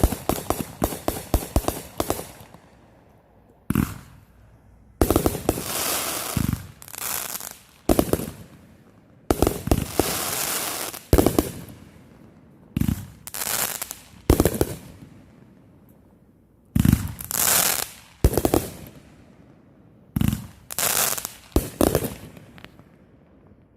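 Fireworks going off: a fast string of sharp firecracker pops for the first couple of seconds, then a series of separate crackling bursts, each lasting a second or two, with short pauses between them.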